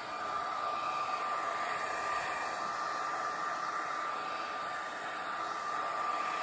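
Hand-held hair dryer running steadily, blowing air onto a leather bike saddle: an even rush of air with a thin steady whine on top.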